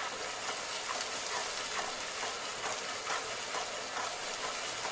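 Ground onion, green chilli, ginger, garlic and coconut paste sizzling steadily as it fries in hot mustard oil in a metal pan on a flame just turned up high, with a metal spatula stirring through it.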